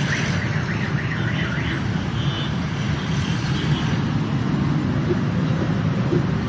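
Steady traffic rumble of a busy street, with a high warbling tone wavering up and down for about the first two seconds.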